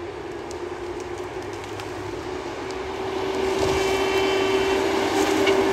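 John Deere 853M tracked feller buncher working in standing pine, its engine and hydraulics running with a steady hum that grows louder about three seconds in.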